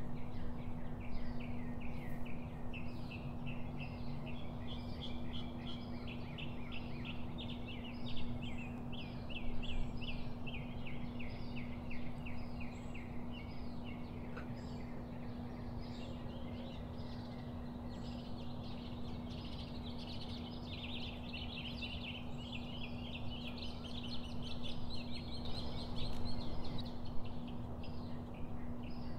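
Birds chirping and chattering in quick, repeated notes that run throughout and grow busier in the last third. Beneath them are a steady low hum and a background hiss.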